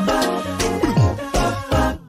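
Upbeat background music with a steady beat and pitched instrumental notes, with a couple of quick downward sliding notes.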